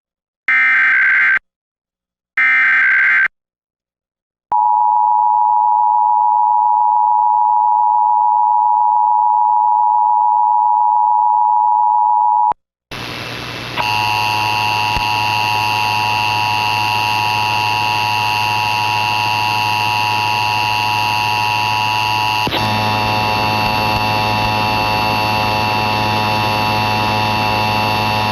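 Emergency Alert System test: the last two screeching SAME data header bursts, a second of silence, then the steady two-tone EAS attention signal (853 and 960 Hz) for about eight seconds, cutting off suddenly. After that comes a steady electrical hum and hiss with constant tones.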